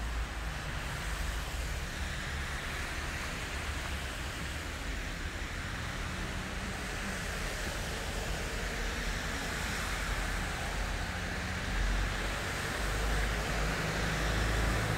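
Steady outdoor background noise of distant city traffic: a broad hiss that swells gently now and then. Under it runs a low, uneven rumble of wind on the microphone.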